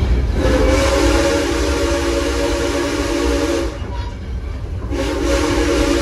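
Steam whistle of Southern Railway 2-8-0 locomotive 630 blowing a long blast of about three seconds, then, after a break of about a second, starting a second blast, over the steady low rumble of the train rolling along.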